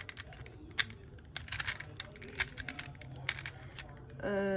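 Plastic rainbow-ball puzzle being twisted in the hands: irregular sharp clicks as its hemispheres turn and the loose balls inside shift. Near the end a person starts humming a steady held note.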